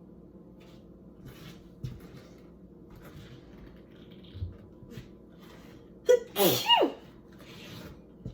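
A person sneezes loudly once about six seconds in: a short catch of breath, then the 'choo' with a voice that falls sharply in pitch, and a breath out after it. Quiet breaths and sniffs come before it. The sneezing is an allergic reaction to kitchen cleaning products.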